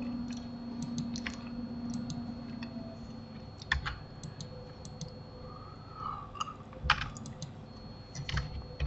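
Scattered computer keyboard key presses and mouse clicks: isolated short clicks at irregular intervals, some in quick pairs or small clusters.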